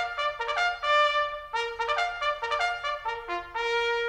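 Intro music: a trumpet playing a quick melody of short notes, ending on a held note that cuts off suddenly.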